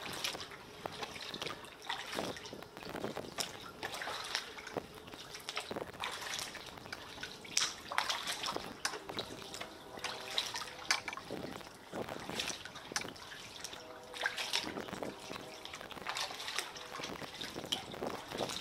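Water splashing and dripping in irregular small splashes, from kayak paddle strokes and small waves slapping against the concrete pilings of a pier.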